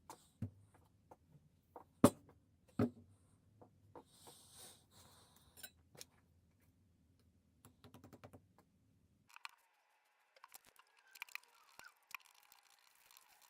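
Scattered small clicks and knocks of handling, the loudest a sharp knock about two seconds in, with a brief hiss a couple of seconds later; about nine seconds in the background changes abruptly and more small clicks follow.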